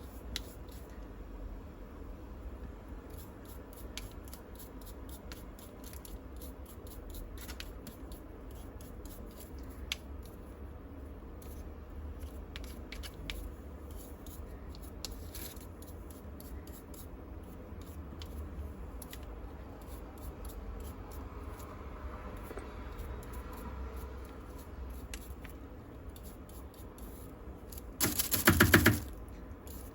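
Dust being brushed and scraped off a handheld bed vacuum's plastic filter, with many small scratches and clicks. Near the end comes a loud rattling burst about a second long.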